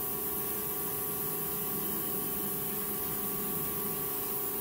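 Vevor 8-inch variable-speed bench grinder running with a steady hum, while the tip of a steel bowl gouge is held and rolled against the spinning wheel to shape a 40/40 grind.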